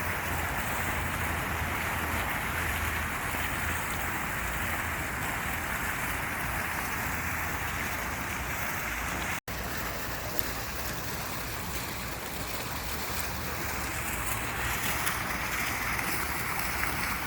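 Steady rushing white noise, hiss-like and even, cutting out abruptly for an instant about nine seconds in.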